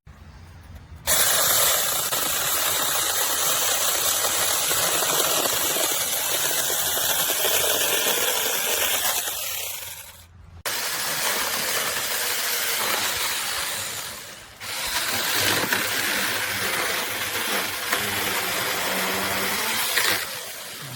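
Battery-powered Tietoc 6-inch mini chainsaw running in three long bursts. It starts and stops abruptly each time, with a short pause about ten seconds in and a brief dip about fourteen seconds in.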